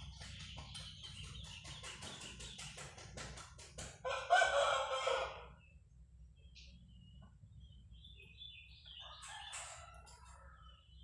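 A bird calls loudly for about a second and a half, starting about four seconds in, and a fainter call follows near the end. Before the first call comes a run of quick clicks.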